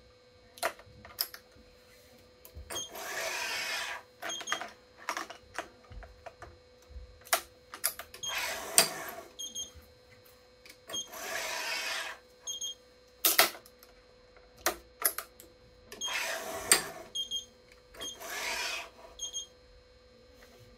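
Badminton racket stringing on an electronic stringing machine: string pulled through the racket frame in five swishes of about a second each, among sharp clicks of clamps and gripper and short electronic beeps from the machine. A faint steady hum runs underneath.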